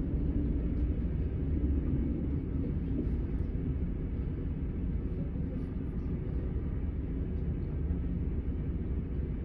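Setra S 431 DT double-decker bus's diesel engine running steadily, a deep even hum with no change in pitch.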